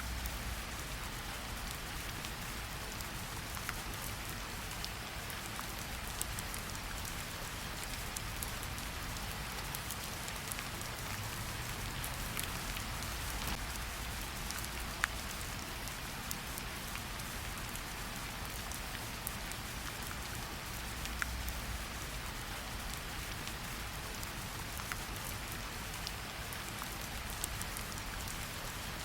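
Steady rain falling, with a fireplace's occasional sharp crackles and pops over a low rumble. One crackle about halfway through stands out above the rest.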